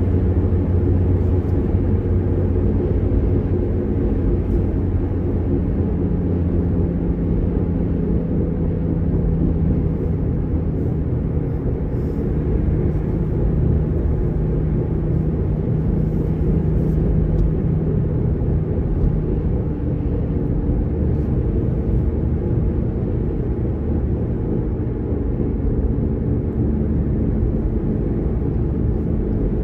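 Steady road and engine rumble of a car driving along a highway, heard from inside the cabin, with a low hum that holds through the middle stretch.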